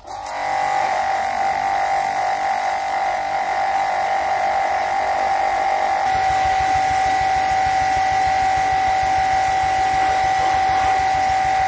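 A pressure washer (jet wash) running steadily as its jet is sprayed over a stone fountain: a constant high motor hum over the hiss of the water jet. It starts abruptly, and the sound turns a little fuller and lower about six seconds in.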